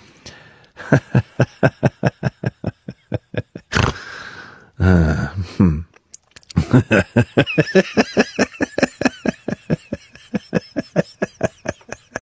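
A person laughing hard in fast, even pulses, several a second; about four seconds in the laughter breaks into a loud, drawn-out cry, then carries on in the same rapid rhythm.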